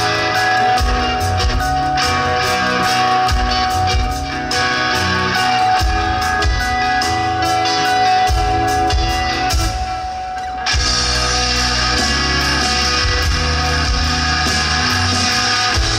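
A live rock band plays an instrumental passage, led by electric guitar over bass and drums. The band thins out briefly about ten seconds in, then comes back in fuller and louder.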